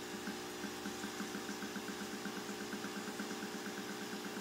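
Home-built reed-switch pulse motor, a rotor of neodymium magnets spinning over four coils, running with a fast, even ticking. The ticking starts about a quarter second in and quickens as the rotor picks up speed.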